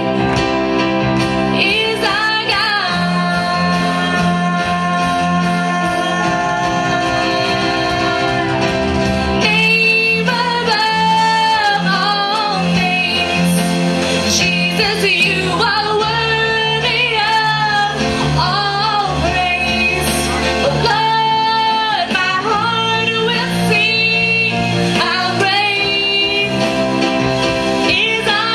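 A woman singing a slow melody with long, wavering held notes, accompanied by an electronic keyboard playing sustained chords that change every few seconds.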